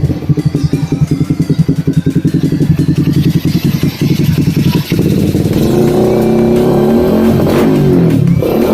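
Suzuki Raider R150 motorcycle engine with an aftermarket power pipe exhaust being revved. For about the first five seconds it runs in quick, choppy throttle blips, then it holds a steadier rev.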